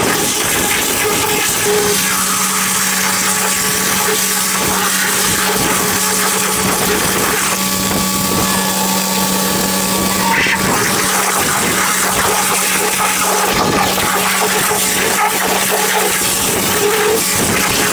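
Pressure washer spray hissing steadily against a surface, with a steady low machine hum from the washer joining about two seconds in.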